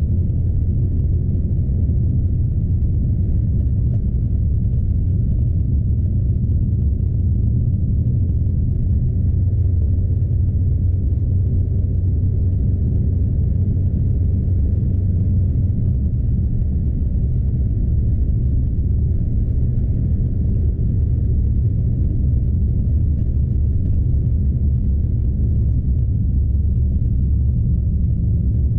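Steady low rumble of a Scania truck's diesel engine and tyre noise on a snowy road, heard inside the cab.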